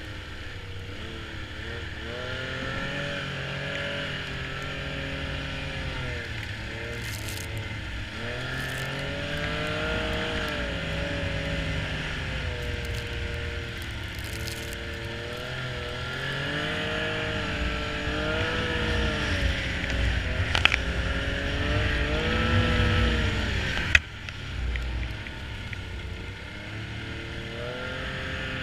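Snowmobile engine running, its pitch rising and falling again and again as the throttle is opened and eased off. There is one sharp click near the end.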